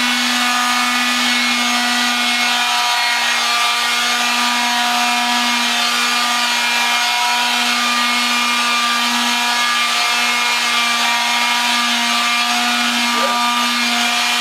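An electric power tool's motor running steadily: a constant hum with a hiss over it.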